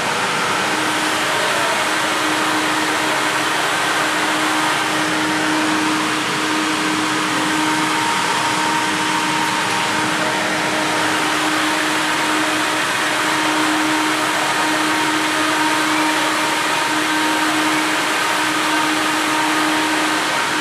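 Schindler hydraulic lift running through a ride, a steady whirring hum with a constant low tone and no breaks.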